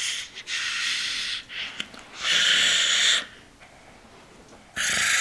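Loud breathy hisses close to the microphone, four bursts of about a second each, with no pitch to them, like excited huffing exhalations.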